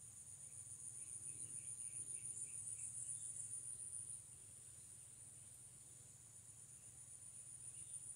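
Insects droning at a steady high pitch in forest undergrowth. The drone grows louder, then drops back at about four seconds, with a few faint short chirps while it is loud.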